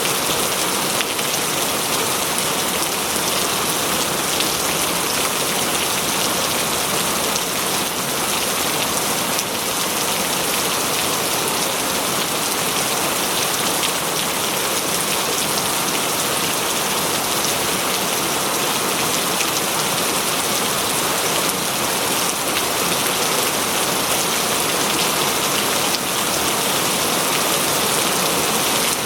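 Steady rain falling on foliage, a dense even hiss with fine patter of drops that stays constant.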